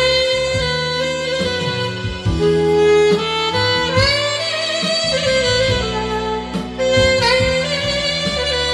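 Alto saxophone playing a slow melody in long held notes with vibrato, over a backing track.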